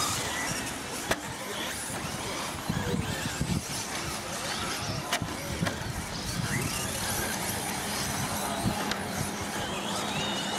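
Radio-controlled 2WD short course trucks racing on a dirt track: faint motor whine gliding up and down over a steady noisy hiss of tyres on dirt, with a few sharp knocks.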